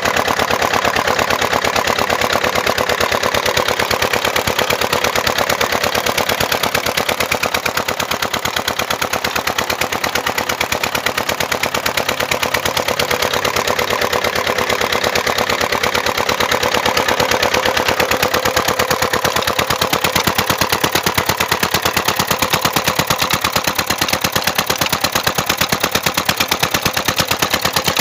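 Single-cylinder stationary diesel engine running steadily under load, its exhaust beating out a fast, even train of sharp knocks as it drives a tubewell pump by flat belt.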